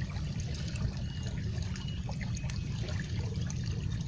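Water trickling and flowing steadily over a low, even rumble.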